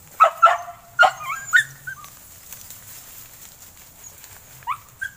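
Hunting dogs barking and yelping: a quick run of short barks in the first two seconds, then a couple more near the end.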